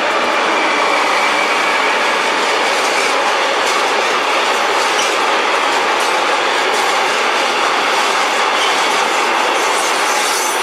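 Freight train of container wagons passing close by at speed: steady noise of steel wheels rolling on the rails, with light clicking as the wheels cross rail joints.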